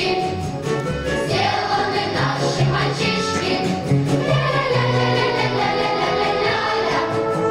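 A large children's choir singing with instrumental accompaniment.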